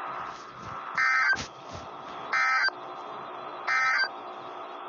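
Emergency Alert System end-of-message data bursts: three short, harsh buzzing bursts of digital tones, a little over a second apart, over steady radio hiss. A single click follows just after the first burst. The bursts signal the end of the tornado warning broadcast.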